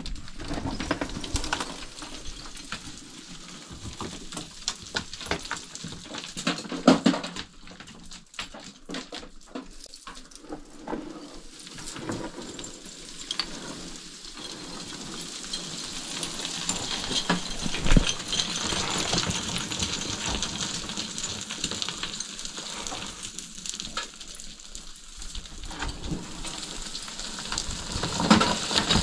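Loose, crumbly rock and dirt scraping and trickling as someone scrambles through it. Scattered sharp knocks of stone in the first half give way to a steady dry hiss of sliding grit.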